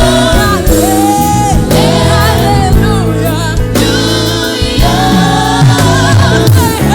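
Gospel song with singing voices, held sung notes over steady bass and instrumental accompaniment.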